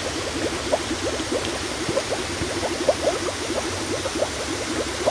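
Shallow seawater lapping and gurgling at the shoreline: a steady stream of many small bubbling plops.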